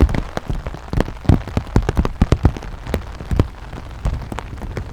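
Rain falling, with irregular sharp taps of raindrops striking close to the microphone over a steady low rumble.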